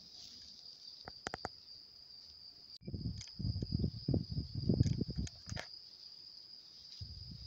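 Steady high-pitched chirring of insects, crickets by their sound, in the grass. From about three seconds in to almost six, louder low, uneven rumbling and thumps cover it, with a few sharp clicks just after the first second.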